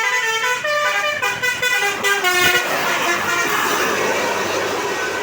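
Multi-tone Basuri 'telolet' bus horn playing a quick melody of short stepping notes, which stops about two and a half seconds in; a loud rushing noise fills the rest.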